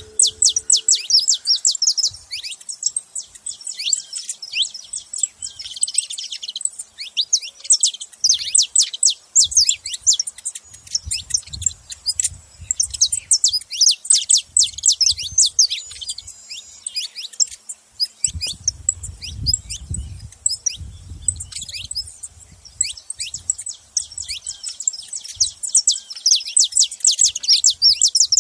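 Saffron finch chirping in rapid, near-continuous runs of short, high, sharply falling notes, with a few brief pauses.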